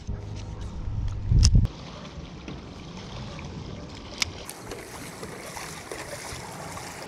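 A stand-up paddleboard passing close by, its paddle dipping and splashing in the water in the second half. Before that there is a heavy low thump from handling or wind on the microphone, about one and a half seconds in, and a few sharp clicks.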